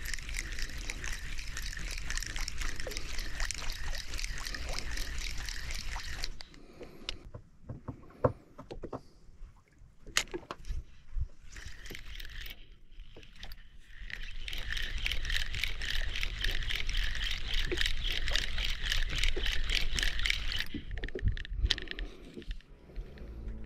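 Spinning reel under load from a hooked fish, giving two long runs of fast, even ticking with scattered sharp clicks and knocks between them.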